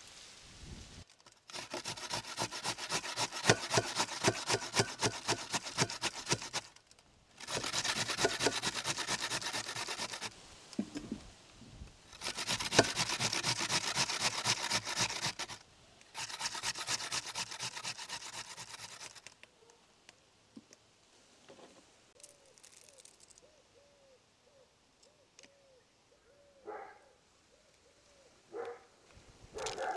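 Raw potato being grated on a metal box grater: four bouts of fast, even rasping strokes, each a few seconds long with short pauses between, then quieter scattered clicks.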